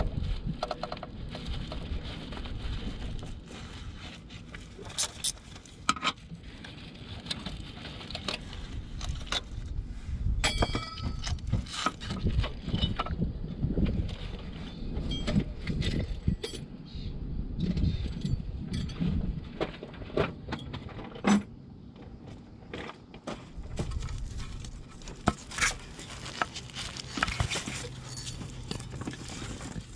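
Hands working the old timing belt off the sprockets of a 1.6 HDi diesel engine: rubbing and shuffling with scattered light metallic clicks and clinks, one of which rings briefly about ten seconds in.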